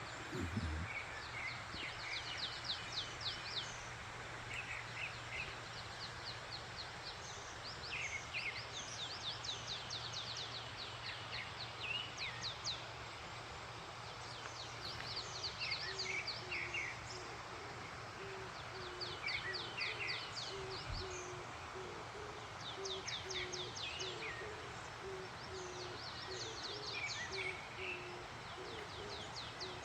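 Songbirds singing in repeated short bouts of fast, high trills, joined through the second half by a low hooting call repeated at an even pace, over the steady rush of a mountain stream.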